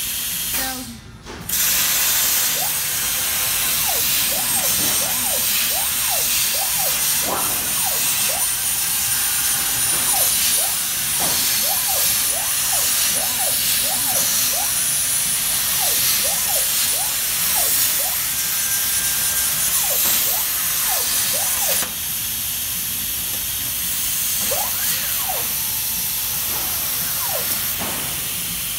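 CNC plasma cutting table cutting sheet steel: a loud, steady hiss from the plasma arc and its air, with many short rising and falling whines from the gantry drives as the torch moves and changes direction. After a brief dip about a second in, the cut runs until about three quarters of the way through, then the sound drops to a quieter hiss.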